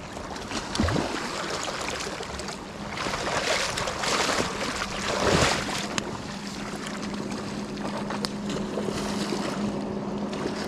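Wind buffeting the microphone over rushing river water, swelling louder a few seconds in, with a steady low hum running underneath from about two seconds in.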